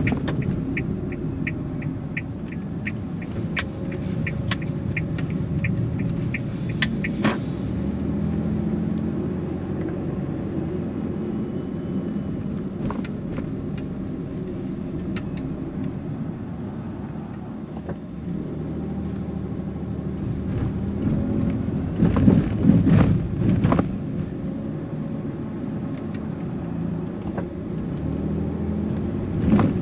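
Car driving along a city street: a steady low engine and road rumble, with a quick regular run of short high pips for the first several seconds and a few louder jolts about two-thirds of the way through.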